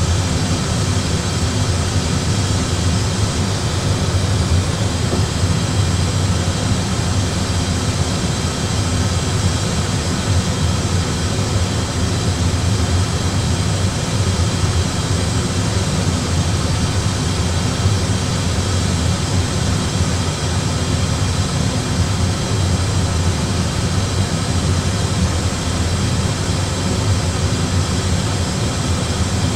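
Steady flight-deck noise of an Airbus A320 in flight on autopilot: a constant low rumble with a hiss over it.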